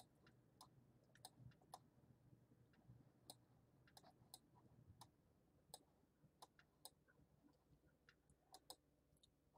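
Faint computer mouse clicks, a dozen or so at irregular intervals, over near silence.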